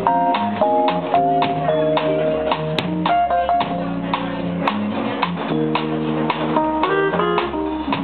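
Live band playing an instrumental passage: a drum kit keeps a steady beat under held keyboard notes.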